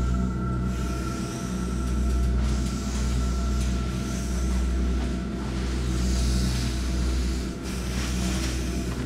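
Low rumbling ambient drone of a film soundtrack, with steady held tones above it, swelling and easing about every two seconds.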